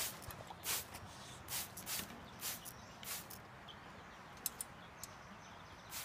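Short hissing bursts of water spray over a bathing blue-fronted Amazon parrot, one every half-second to second, stopping about halfway through, with two sharp clicks a second later.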